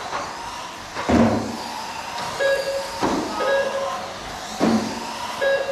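Mini RC racing trucks running on an indoor asphalt track, with sudden whooshes as cars pass close by, about 1, 3 and 4.5 seconds in. Short repeated steady tones sound over the din from about halfway through.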